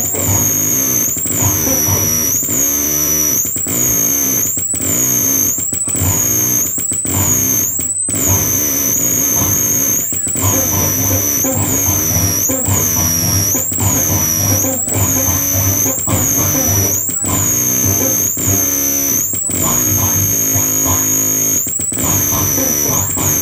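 Loud electronic noise music: distorted, droning tones under a piercing high whistle that swoops up and back down about once a second, cut through by brief sudden dropouts.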